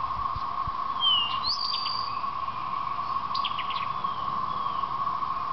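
Steady whirring drone of a distant chorus of periodical cicadas, an even hum on one pitch that never lets up. Songbirds chirp over it about a second in and again past the three-second mark.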